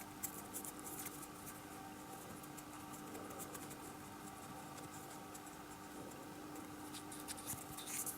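Faint clicks and scratches of small parts being handled, a few just after the start and a cluster near the end, over a steady low hum.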